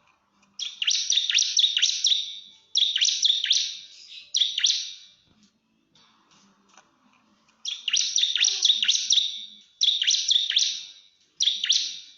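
Bar-winged prinia (ciblek) singing its rapid-fire 'nembak' challenge song aimed at a rival: bursts of quick, sharp, high notes, each sweeping down in pitch. The song comes in two bouts of three phrases each, with a pause of about two seconds between the bouts.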